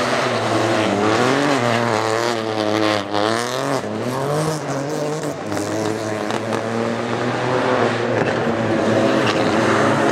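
Rally car engines revving hard as the cars drive through a tarmac stage: first a Peugeot 208 rally car, then a Toyota Corolla WRC, the engine pitch repeatedly rising and dropping through throttle and gear changes.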